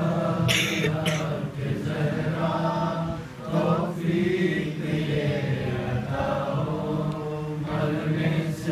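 A young boy's solo voice chanting a Munajat, a devotional supplication, in slow melodic lines with long held notes and a short breath break about three and a half seconds in.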